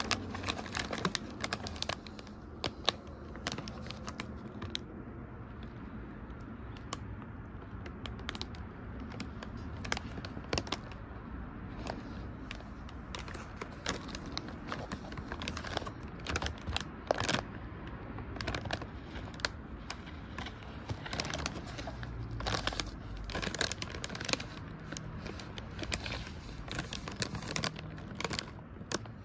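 A plastic snack bag crinkling and crackling as it is held and turned in the hands, with many irregular sharp crackles.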